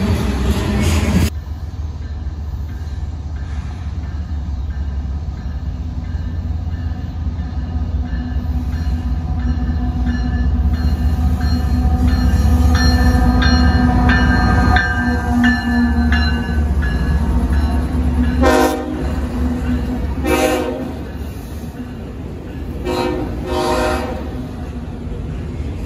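Freight trains passing grade crossings. First tank cars roll past. Then a diesel freight locomotive sounds a long horn chord as it approaches, and the horn's pitch drops as it passes, over the low rumble of the engine and cars. Near the end come a few short horn blasts as autorack cars roll by.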